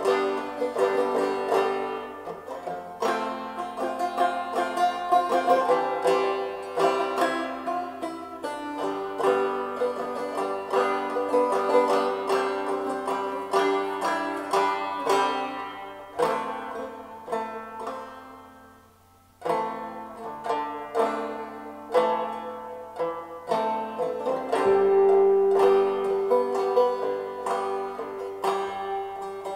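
Background music played on plucked strings, with quick picked notes. It fades almost to nothing about two-thirds of the way through, then starts up again.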